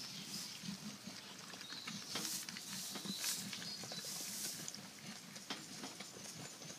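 Texel ewe and newborn twin lambs moving about, with faint rustling and soft low grunting sounds.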